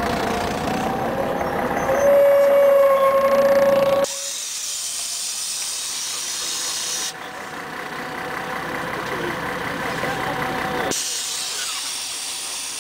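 Scania CN113CLL city bus coming to a stop: the brakes squeal, a wavering tone for about two seconds, then a sudden hiss of compressed air from the air brakes and pneumatic doors lasts about three seconds. A second air hiss comes near the end.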